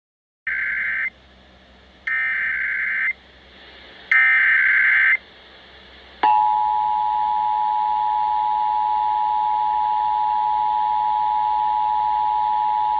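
Emergency Alert System test tones: three short bursts of SAME digital header data, each about a second long and a second apart, then the steady two-tone EAS attention signal starting about six seconds in and holding.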